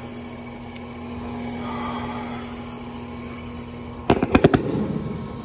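A steady low hum, then about four seconds in a quick run of five or six sharp knocks followed by a short rattle.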